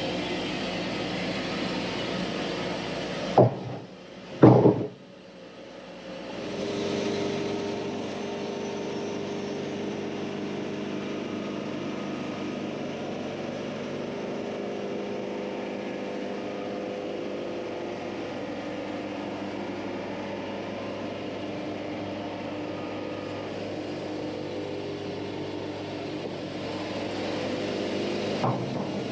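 Diesel engine running steadily, with two loud knocks about three and a half and four and a half seconds in.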